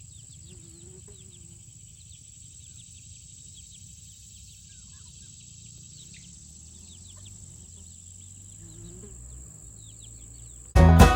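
Insects droning outdoors: a steady high-pitched hum with many quick chirps over it. Near the end, bluegrass-style banjo music cuts in loudly.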